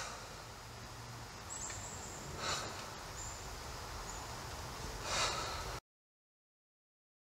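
Film-soundtrack ambience: a steady low hiss with a few faint short high chirps and three brief rushing swells, cutting off abruptly to dead silence a little under six seconds in.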